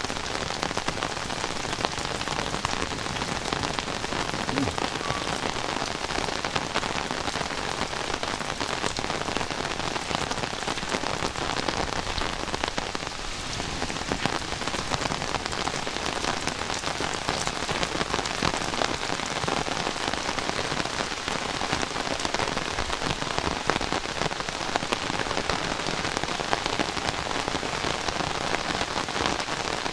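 Heavy rain falling steadily, thick with the ticks of close drops hitting surfaces. It eases slightly for a moment about halfway through.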